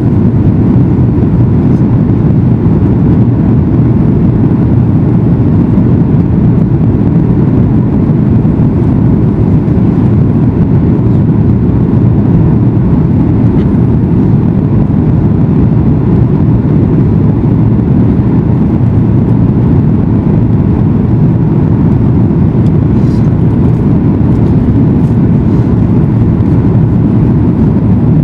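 Steady, loud low rumble and rush of a Boeing 737 MAX 8's cabin in flight: its CFM LEAP-1B turbofan engines and the airflow over the fuselage, heard from a passenger seat.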